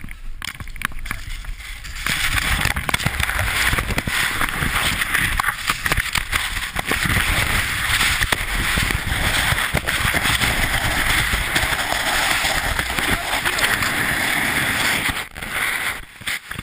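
Loud rushing and buffeting of sliding snow against a helmet camera's microphone, with scraping and knocks, as a skier is carried down in an avalanche. The rushing starts about two seconds in and drops away sharply near the end.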